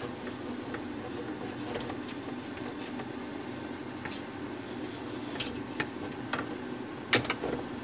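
Steady low mechanical hum with a few small clicks and one sharper knock about seven seconds in.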